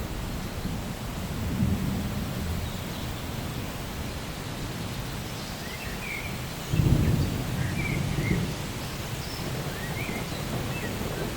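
Steady rain with low thunder rumbling under it; a louder roll of thunder comes in suddenly about two-thirds of the way through. Faint short high chirps are heard over the rain in the second half.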